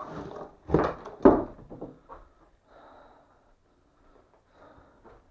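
Footsteps and movement on the bare wooden floor of a derelict house: two heavy thuds about half a second apart about a second in, then softer shuffling.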